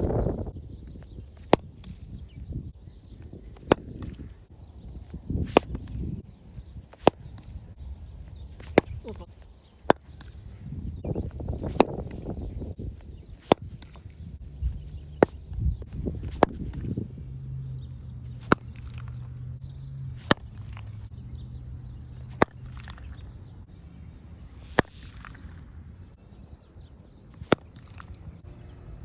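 A repaired cricket bat striking a ball again and again, sharp cracks every couple of seconds, as the bat is tested.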